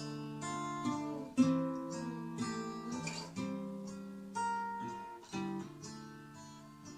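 Acoustic guitar playing an instrumental passage, plucked and strummed chords ringing on with a new chord or note every half second or so, dying away toward the end.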